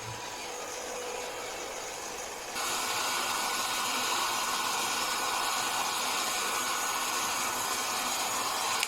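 Hair dryer blowing a steady rush of air, used to dry sticky tea out of keyboard switch parts. It gets louder about two and a half seconds in and is switched off at the end.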